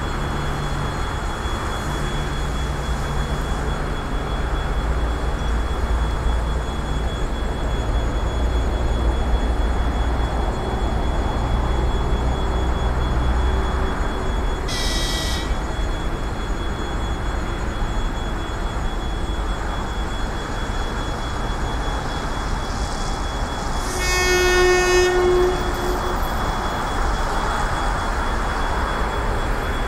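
Approaching suburban electric train sounding two warning signals over a steady low rumble: a short high-pitched whistle about halfway through, then a longer, lower and louder horn blast near the end.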